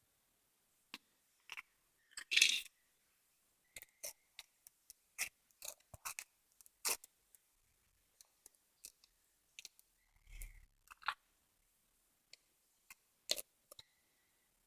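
Slime being handled, making irregular small clicks and pops, with a louder crackle about two seconds in and a soft thud with more clicks about ten seconds in.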